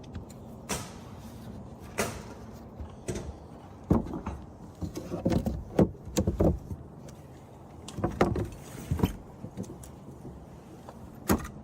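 Irregular knocks and thumps of handling and work on the build, about ten in all and unevenly spaced, over a low steady background.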